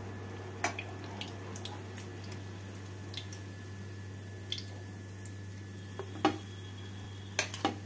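Hot oil in a frying pan crackling, with a few scattered sharp pops and clicks as a fried paratha is lifted out with a metal slotted spatula, over a steady low hum.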